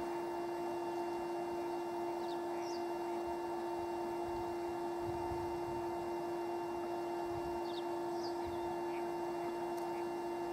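A steady low hum at one unchanging pitch, with a few faint bird chirps a couple of seconds in and again near the middle.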